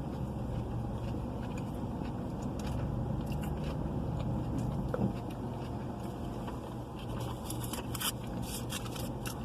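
Biting into and chewing a chicken burrito, with small wet clicks and crackles scattered through, over a steady low hum.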